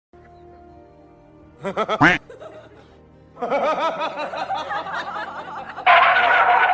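Faint background music, then a short burst of laughter about two seconds in and a longer stretch of chuckling and laughter from about halfway, loudest near the end.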